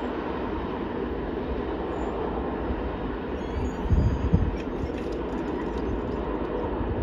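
BNSF double-stack intermodal train's cars rolling away at speed: a steady rumble of steel wheels on the rails, with a brief louder low swell about four seconds in.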